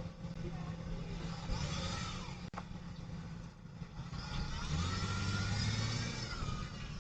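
A motor vehicle engine running, growing louder with a rising and falling whine about four seconds in.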